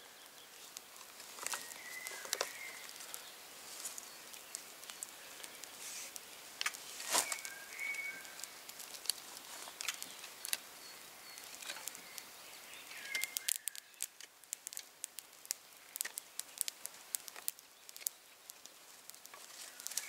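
Knife whittling a wooden stick: a run of short scraping cuts and sharp clicks, coming faster in the second half, with a few short bird chirps.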